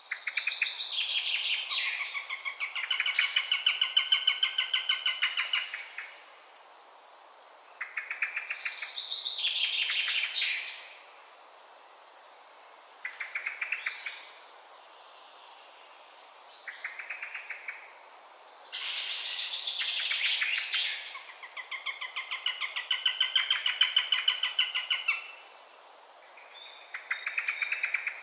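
Eurasian sparrowhawk calling: bouts of fast, rapidly repeated notes, some running several seconds and others only about a second, with short pauses between bouts.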